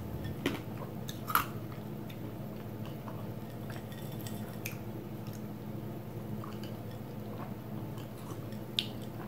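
A person sipping a drink from a stemmed wine glass: a few short mouth and glass clicks, the loudest about a second and a half in, over a steady low hum in the room.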